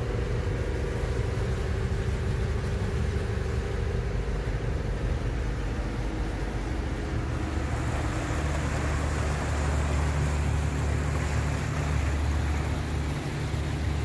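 Motorboat engine running with a steady low drone that grows stronger about eight seconds in.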